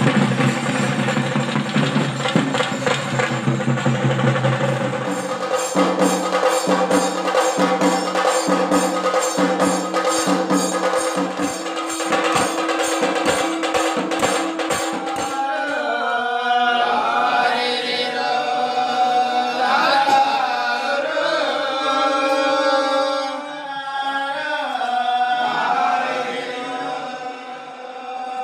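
Music: a steady drum beat for about the first half, then a singing voice with a chant-like melody over it from about halfway on.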